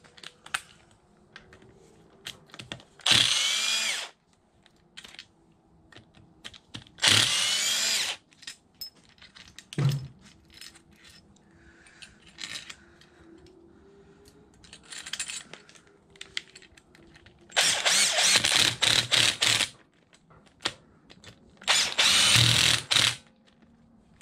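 Cordless drill driving a fastener into an engine case, in four short runs of about one to two seconds each, with light clicks of parts being handled between them.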